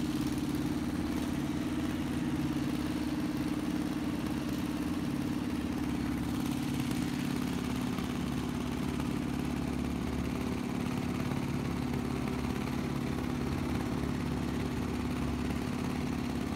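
Motorboat engine running steadily underway, a constant drone with a low rumble; its pitch drops slightly about seven seconds in as it eases off a little.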